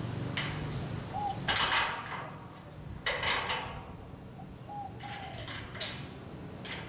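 Two short bursts of handling noise, about 1.5 and 3 seconds in, as a new gate wheel is fitted onto its bolt under a sliding gate. A bird calls faintly a few times in the background over a steady low hum.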